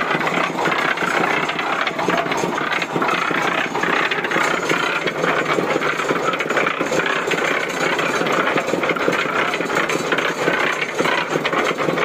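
Cement mixer running steadily, its drum turning and churning a load of clothes in soapy water, with a dense, continuous clatter.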